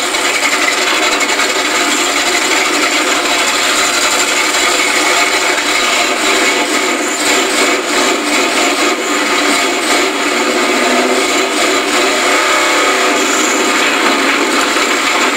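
4x4 mud truck's engine running loud and steady, heard from inside the cab.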